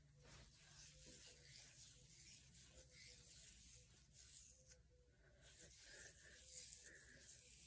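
Faint rustling and rubbing of fingers working gel through wet curly hair.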